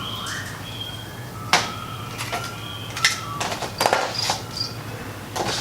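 Scattered clicks and knocks of handling, like a container or enclosure door being moved, with a sharp knock about a second and a half in, a cluster of clicks around four seconds in, and a few short faint squeaks.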